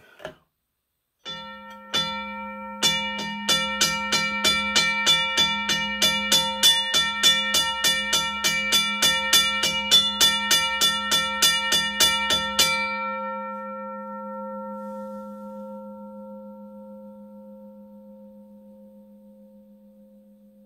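Western Cullen Hayes 12-inch railroad crossing bell with a Safetran gong ringing. After a couple of first strikes the hammer strikes the gong about three times a second for roughly ten seconds. Then the strikes stop and the gong rings on, resonant, slowly fading.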